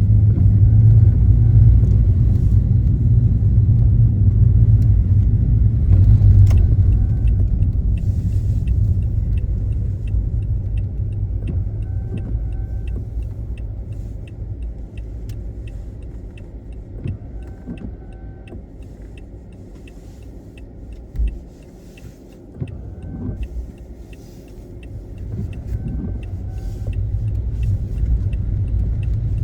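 Car driving, a steady low rumble of engine and road noise that fades as the car slows in the middle and builds again near the end. Regular light ticking runs through most of it.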